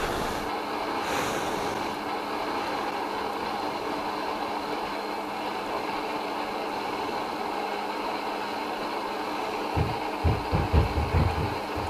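A steady droning hiss with a faint hum under it, and a few low thumps about ten seconds in.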